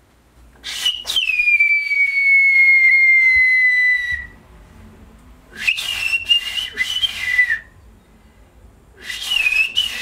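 Turkish whistled language ('bird language', kuş dili), whistled loudly through the fingers by a woman in three phrases. The first is a long note that drops sharply at its start and then slides slowly lower over about three seconds. The second and third are shorter and waver up and down. The whistled message is 'Come here.'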